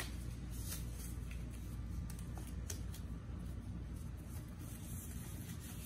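Faint rustling and a few soft snaps of thin white gloves being pulled onto the hands, over a low steady room hum.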